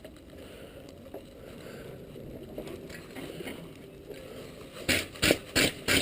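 Wire brush scrubbing a freshly forge-welded steel belt buckle to see how the weld looks: after a few quiet seconds, quick rasping strokes start about five seconds in, about three a second.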